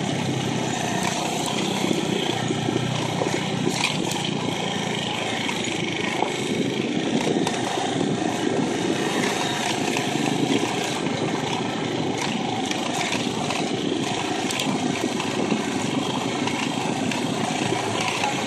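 Motorcycle engine running steadily while riding over a gravel dirt road, under a continuous rush of road and wind noise.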